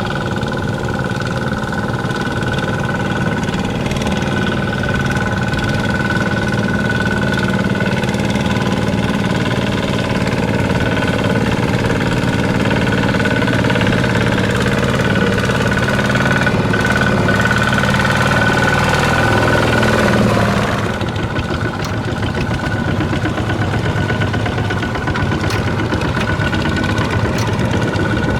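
Walking tractor engine running steadily, then easing off about two-thirds of the way through and carrying on at a slightly lower level.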